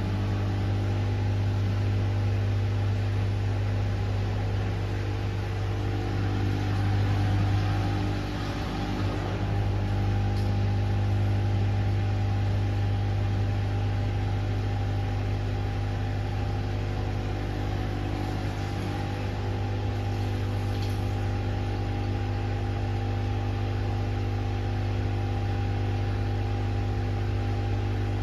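Pasvens washing machine running a wash cycle: a steady low motor hum with several faint steady tones above it. The hum swells briefly and dips about eight seconds in.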